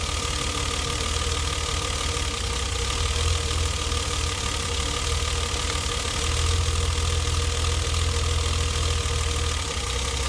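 BMW M20B20 inline-six engine idling with its freshly rebuilt cylinder head and new camshaft. It runs fairly evenly, with a slight, smooth rise and fall in its low note.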